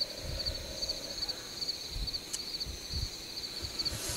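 Insects chirping in a steady, fast-pulsing high trill, with faint, irregular low bumps underneath.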